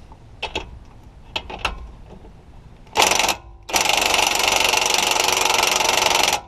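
A few light metal clinks, then a Ryobi cordless impact wrench: a short burst about three seconds in, and after a brief pause a steady, rapid hammering for nearly three seconds that cuts off suddenly just before the end.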